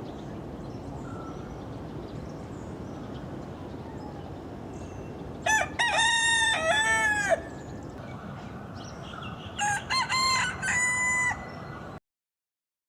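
Rooster crowing twice: a loud full crow about halfway through, then a second, fainter crow a few seconds later, over a steady background hiss. The audio cuts off just before the end.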